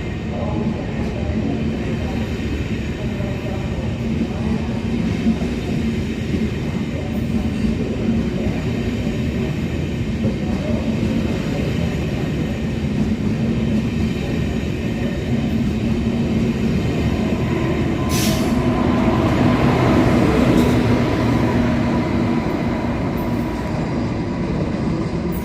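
A train running through a station, with a continuous rumble of wheels and running gear and a low steady tone beneath it. A sharp click comes about 18 seconds in, and the sound grows a little louder after it.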